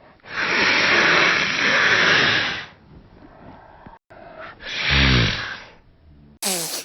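A person sniffing hard through the nose: one long sniff lasting about two and a half seconds, then a shorter sniff about five seconds in, with a low throaty sound that falls in pitch.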